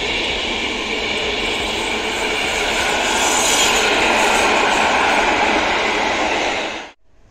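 PKP Intercity passenger coaches passing at speed: a steady, loud rush of wheels on rail that cuts off suddenly near the end.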